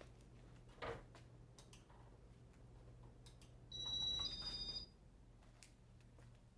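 Ceiling fan switched off and coasting down almost silently: a faint steady hum, a click about a second in, then a two-tone electronic beep lasting about a second midway, the loudest sound.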